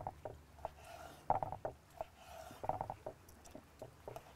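Kitchen knife slicing raw chicken thigh into thin strips on a wooden chopping board: a run of irregular short knocks as the blade meets the board, some coming in quick clusters.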